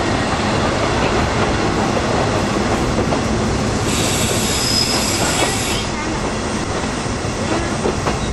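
Vintage passenger coach running on the rails, heard from inside the car: a steady rumble of wheels and running gear. About four seconds in, a high squealing hiss rises over it for roughly two seconds, typical of wheel flanges squealing on a curve.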